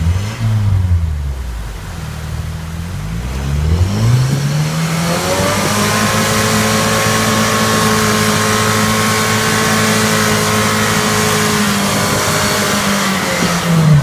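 Rock buggy engine revving up in a couple of rising pulls, then held at high revs for several seconds as the tires spin on the wet rock of the waterfall, before the revs drop right at the end.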